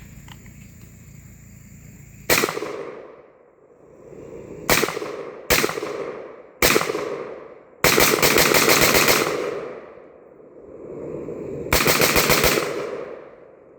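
American Tactical Alpha Max AR-15 rifle firing 5.56 rounds: four separate shots, then two quick strings of rapid fire, each about a second or so long, every shot followed by a short echoing tail.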